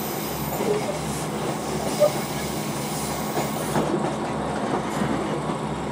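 Passenger train running along the line, heard from inside the carriage: a steady rumble of wheels on rails with light clicks, and one sharp knock about two seconds in.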